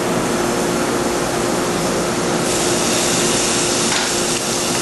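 Butter and a grilled New York strip steak sizzling on a sizzle platter heated to about 500 degrees, the hiss growing brighter and louder about two and a half seconds in, over a steady hum.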